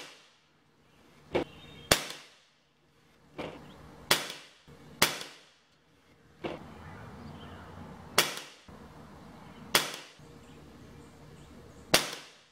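Crosman 1322 .22-calibre multi-pump air pistol firing a string of shots: about nine sharp cracks, each with a short fading echo, spaced half a second to two seconds apart, some louder than others.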